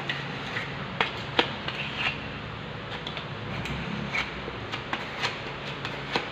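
Scattered light clicks, taps and scrapes from hand work on marble wall cladding, the sharpest about a second in, over the steady hum of an electric fan.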